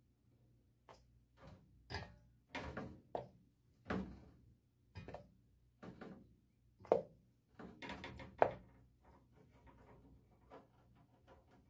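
Pressed gym chalk reforms being set down one after another into a bowl of loose chalk powder: about a dozen soft knocks and taps at uneven intervals, the loudest a little past the middle.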